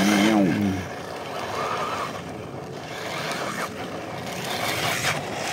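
JJRC Q130A RC car driving on a 3S LiPo battery: the small electric motor whines and revs with the throttle over the rush of its tyres on the ground.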